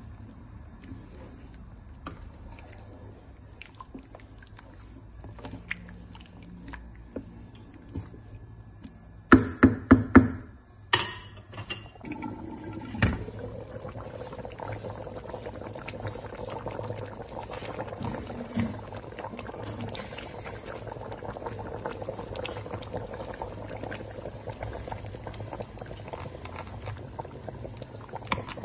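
Palm-oil soup in a pot, with faint clicks and scrapes at first, then a quick run of four sharp knocks about ten seconds in and two more soon after. From then on the soup bubbles steadily at a simmer.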